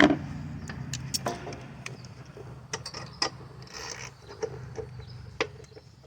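Hands and tools working on a lawn mower's oil filter: a sharp knock at the start, then scattered light clicks, taps and brief scrapes of metal parts being handled.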